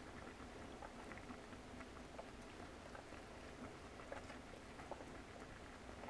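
Faint, irregular clicks and scratches of a wooden spruce chopstick scraping peanut butter out of a small plastic portion cup and crinkling its lid.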